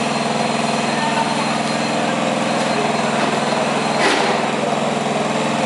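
Garden tractor engine running steadily at a constant pitch while the tractor slowly pulls a weight sled. A brief sharp sound cuts in about four seconds in.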